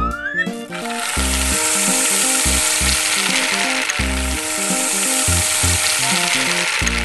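Cartoon sound effect of many small balls pouring into a toy blender jar: a steady, dense hiss starting about half a second in and cutting off just before the end, over a children's music tune.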